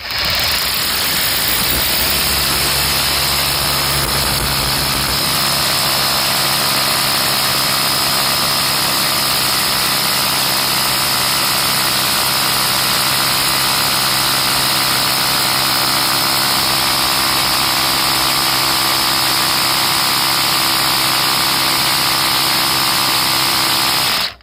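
Ryobi XBRH-18 18-volt brushless cordless SDS rotary hammer drilling a 10 mm hole into granite, a loud steady hammering whir that starts suddenly and cuts off near the end.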